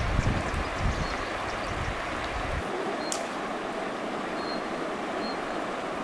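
Steady rushing noise, with wind rumbling on the microphone until it stops abruptly about two and a half seconds in, and one sharp click a little later.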